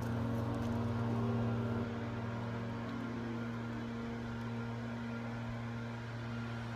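A steady mechanical hum at a fixed low pitch, a little quieter from about two seconds in.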